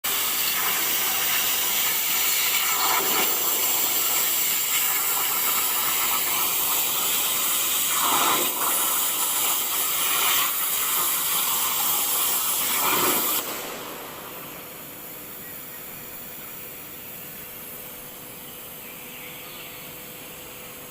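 CNC cutting machine's torch cutting with a loud, steady hiss. The hiss cuts out about thirteen seconds in, leaving a quieter steady rushing noise.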